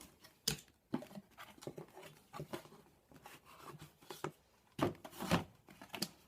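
Handling noises from an airsoft magazine and its packaging being picked up and moved about: irregular light knocks, taps and rustles, with a few louder knocks about five seconds in.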